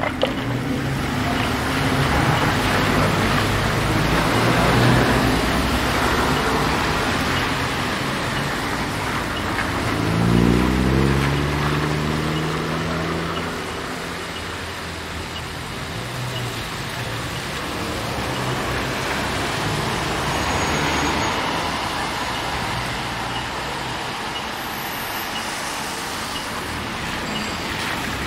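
Street traffic passing on a wet road: tyres hissing on the wet surface over the running of engines. About ten seconds in, one vehicle's engine revs up as it pulls away, its pitch rising, the loudest moment of the passage.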